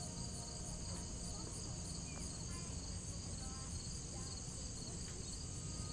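Insects chirring steadily in a high-pitched, finely pulsing chorus over a constant low rumble.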